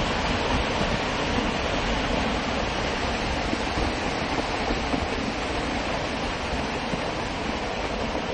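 Landslide: rock and earth cascading down a steep mountainside, a continuous rumble of falling debris that eases slightly toward the end.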